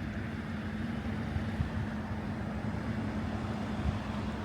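Steady low rumble of a vehicle with a constant low hum, without change.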